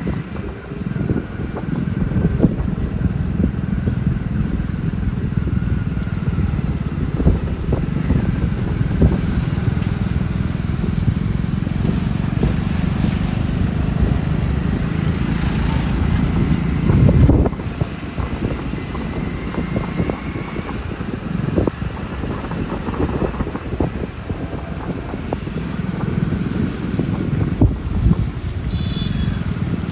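Heavy vehicle's diesel engine running in a low, steady rumble, with wind buffeting the microphone. A louder surge comes about two-thirds of the way through.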